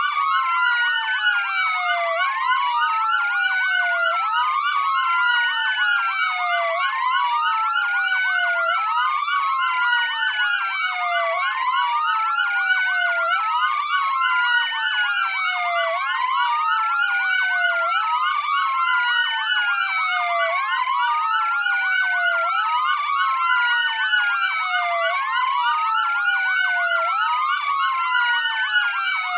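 Several emergency-vehicle sirens sounding together. The loudest is a slow wail that rises over about a second and falls over about two, repeating steadily, while other sirens sweep up and down faster over it.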